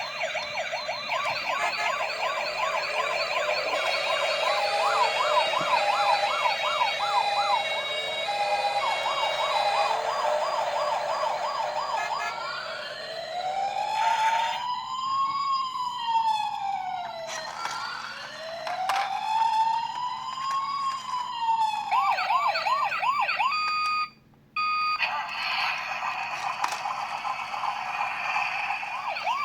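Toy ambulance minicar's electronic siren cycling through its patterns. It opens with a fast warbling yelp, at times with a stepped two-tone pattern. Next come two slow rising-and-falling wails, then the fast yelp again, which cuts out for about half a second near the end.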